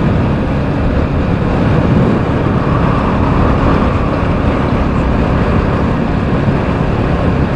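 Motorcycle riding at steady speed: a constant engine hum under loud rushing road and air noise.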